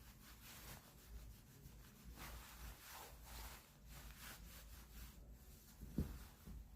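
Faint rubbing strokes, with one short low thump about six seconds in.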